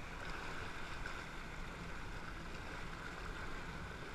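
Distant steady drone of a personal watercraft engine held at constant power, pumping water up the hose to a hovering flyboard, mixed with the hiss of the flyboard's water jets and a low rumble of wind and water.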